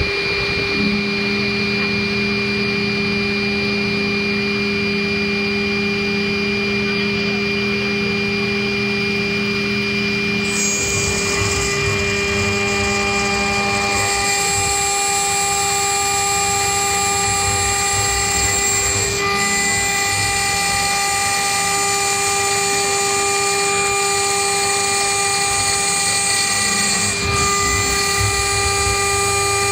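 CNC router spindle milling 10 mm aluminum plate: a steady high whine over the cutting noise. The sound changes about ten seconds in and again around fourteen seconds, when brighter, higher tones join.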